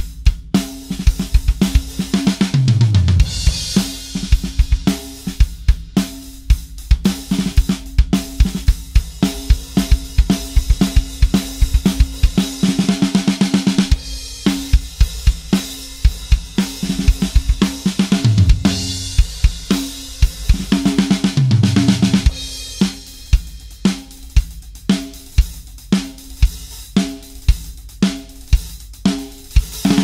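Drum kit played in a groove: beats kept on a pair of vintage Paiste 505 14-inch hi-hats over the kick drum and a steel snare of a 1986 Tama Superstar kit. Several fills run down the toms, each stepping lower in pitch, and there is a fast run of even strokes just before halfway.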